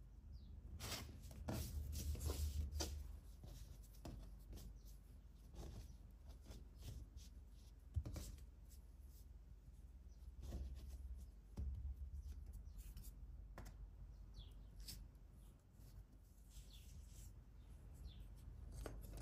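Quiet handling sounds of hands pressing and shaping soft dough on a wooden board: scattered light taps and brushing, with a few dull bumps against the board.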